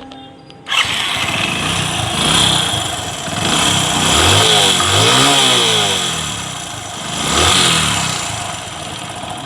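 Hero Splendor Plus motorcycle's single-cylinder engine starting about a second in, then revved up and down a few times before settling back. It runs with a harsh rattling noise, 'like it's breaking apart'. The bike has lost mileage and top speed, and on teardown its worn piston and heavily carboned head and piston turn out to be the cause.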